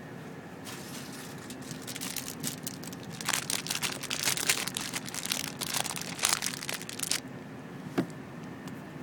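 Plastic bag crinkling and rustling as it is handled to get out another piece of food. The crackling grows louder about three seconds in and stops after about seven seconds, and one sharp click follows.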